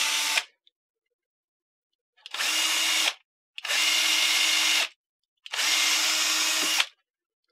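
Bosch cordless drill boring holes through a small wooden block, running in short bursts at a steady pitch: one run stops just after the start, then three runs of about a second each with brief pauses between.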